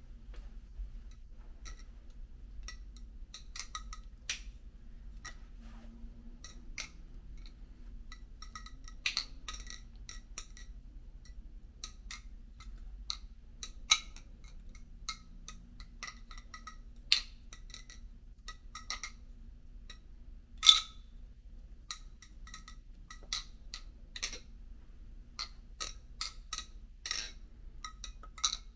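Serif balisong (butterfly knife) being flipped: irregular metallic clicks and clinks as the handles swing around the blade and knock together, with a sharper clack every few seconds and quicker clicking near the end. A faint steady low hum lies underneath.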